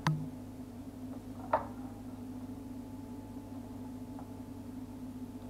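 Wire oven rack knocking against the metal baking tray as a raw turkey is set down on it: a sharp click at the start and a louder knock with a short ring about a second and a half in, over a steady low hum.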